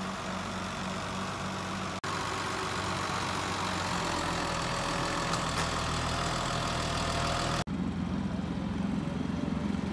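Outboard motor running steadily, with abrupt breaks about two seconds in and near the end where the sound changes.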